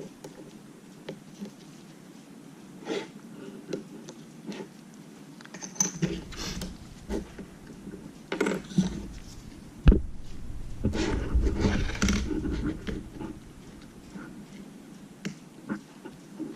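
Plastic pry tools and guitar picks clicking and scraping at the edge of a cracked iPad mini's glass digitizer as its side adhesive is pried up. Light knocks and handling noise come in bursts, busiest in the middle, with one sharp click about ten seconds in.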